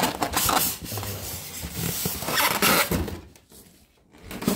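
Rustling and scraping of packaging being handled: plastic wrap, styrofoam and cardboard. It dies down about three seconds in, and a short loud rustle or knock comes at the very end.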